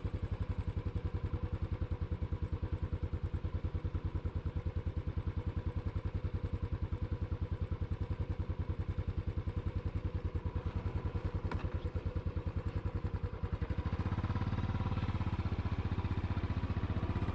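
Royal Enfield Classic 500's single-cylinder engine idling with an even, rapid thump, a single click about eleven seconds in, then revs rising and the beat smoothing out as the motorcycle pulls away, about fourteen seconds in.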